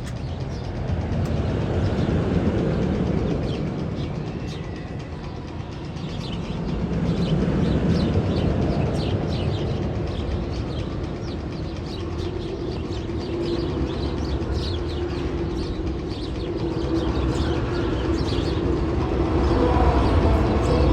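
Steel roller coaster train of the Magnum XL-200 rolling along the track: a low rumble with rapid clicking that swells and fades twice.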